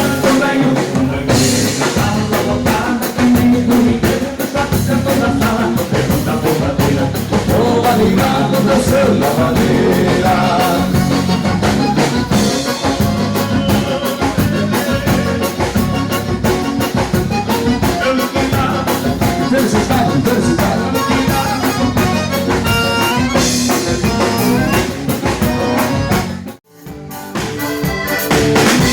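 Live gaúcho dance band playing a lively dance number with drum kit and bass keeping a steady beat, in an instrumental stretch without vocals. The music drops out for a moment near the end, then picks up again.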